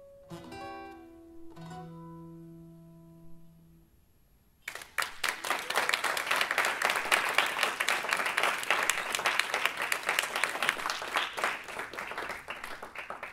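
Guitars play two final strummed chords that ring out and fade over a few seconds. About five seconds in, the audience breaks into applause, loud and dense clapping.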